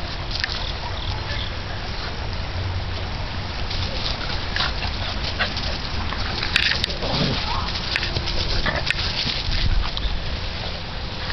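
Two small terriers play-fighting, with dog vocal noises over a steady rustle from the moving handheld camera. A few sharp clicks come in the second half.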